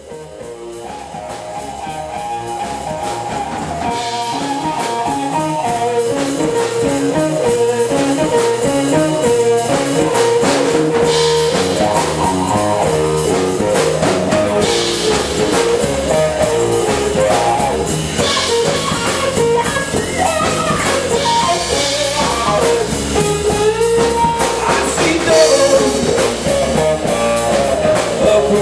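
Live blues-rock band playing electric guitars, bass and drums, with a lead line played on a harmonica cupped against the microphone. The music fades in over the first few seconds.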